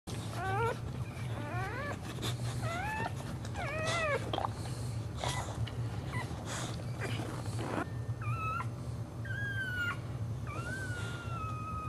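Dog whining in high-pitched cries during whelping: a quick run of short rising whines in the first few seconds, then longer drawn-out whines from about two-thirds of the way in, with soft rustling of the cushions underfoot.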